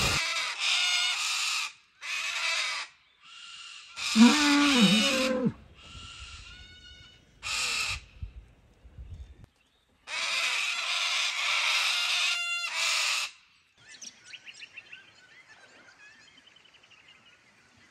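Bird calls and chirping in several short outdoor clips that start and stop abruptly, with a loud, low, drawn-out animal call of three rising and falling parts about four seconds in. Faint scattered birdsong follows near the end.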